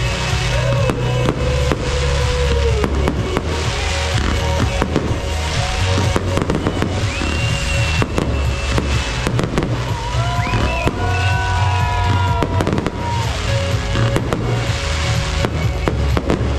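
A fireworks display: aerial shells and comets bursting and crackling in quick succession, over music with a steady heavy bass.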